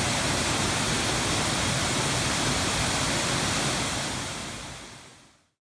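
Steady rush of falling water at Turtleback Falls, a waterfall, fading out from about four seconds in to silence just before the end.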